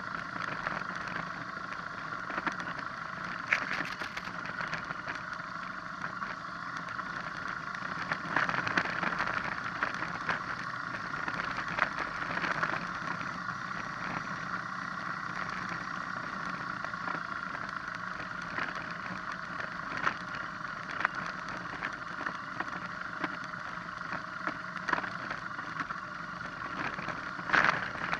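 BMW R1200GS boxer-twin engine running steadily as the motorcycle rolls downhill on a rocky dirt track, with scattered knocks and rattles from the bike over stones and ruts, the loudest a cluster near the end.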